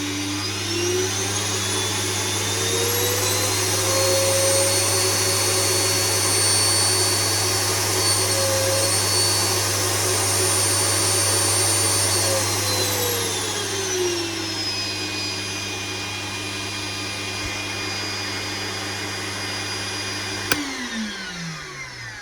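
Homemade fume extractor's 1400 W 240 V vacuum motor running with a loud whine: it speeds up over the first few seconds, holds steady, then settles to a lower speed. About twenty seconds in a click is heard as it is switched off, and the whine falls away as the motor spins down.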